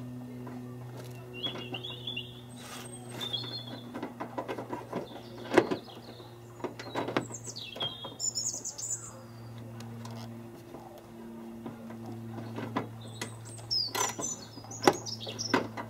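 Birds chirping several times, over irregular sharp clicks and knocks from hands working the Jeep's front wing panel and its fixings into place, with a steady low hum underneath.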